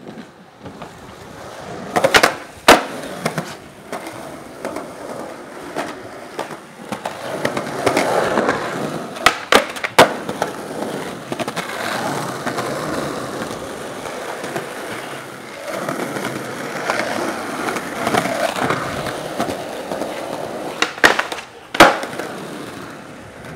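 Skateboard wheels rolling on pavement, with sharp cracks of the board in pairs: two about two seconds in, two about ten seconds in, and two near the end.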